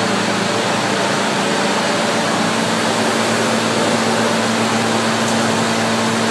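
Olive oil mill machinery running: a steady mechanical hum with a low, even tone underneath.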